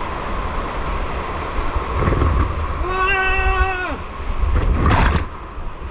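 Rushing water and buffeting on the microphone, with a person's held wordless call about three seconds in and a short sharp knock about five seconds in.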